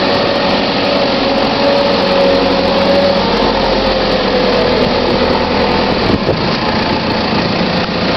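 JCB 3CX backhoe loader's diesel engine running as the machine drives with a loaded front bucket: a loud, steady hum with a clear tone that slowly falls in pitch.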